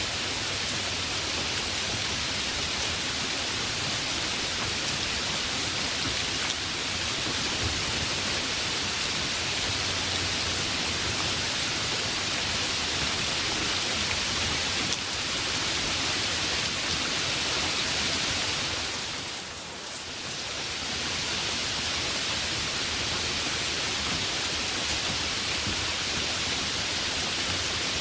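Heavy rain falling in a steady dense hiss, briefly softening about two-thirds of the way through before returning to full strength.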